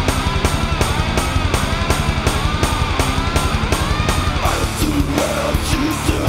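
Groove metal: distorted electric guitars over fast, pounding drums, with the riff changing about four and a half seconds in.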